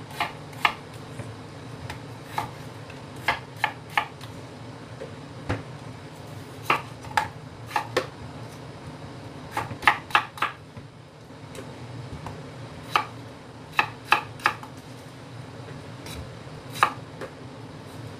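Kitchen knife cutting potatoes on a wooden chopping board: sharp, irregular knocks as the blade strikes the board, a few seconds apart and sometimes two or three in quick succession. A steady low hum runs underneath.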